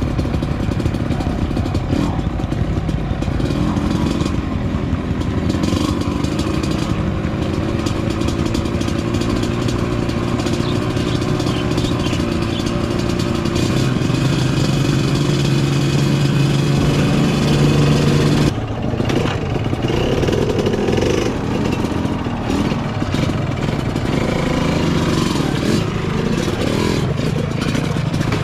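Trail motorcycle engine running over a rough dirt track, its revs rising and falling with the throttle. The revs are held steady for a few seconds and then cut off sharply about two-thirds of the way in.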